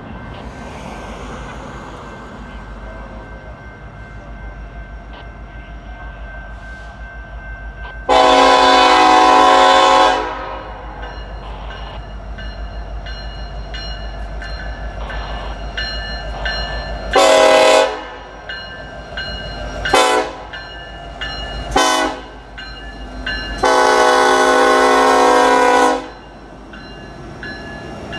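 Norfolk Southern diesel freight locomotive's air horn sounding for a grade crossing: a long blast, three short blasts, then a long blast. Under it runs the steady rumble of the approaching locomotives.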